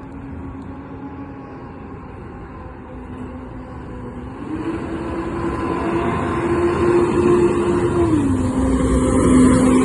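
Volvo B7TL double-decker bus with a Wright Eclipse Gemini body accelerating, a high drivetrain whine, the 'hoover' sound, over the engine. The whine rises in pitch about halfway through, drops back at a gear change near the end, then climbs again, and the bus grows steadily louder.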